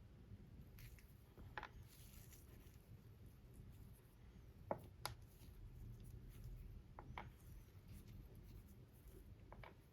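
Near silence with a faint low hum, broken by a few isolated small clicks and taps, the sharpest about halfway through.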